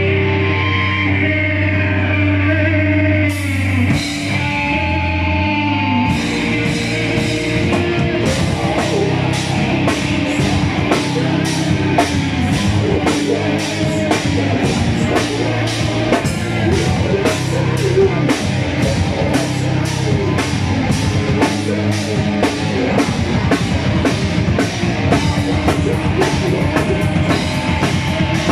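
A heavy metal band playing live with distorted electric guitar, bass and drum kit. For the first few seconds the guitar and bass ring out held chords; then the drums come in with a steady driving beat, cymbal hits about twice a second, under shouted vocals.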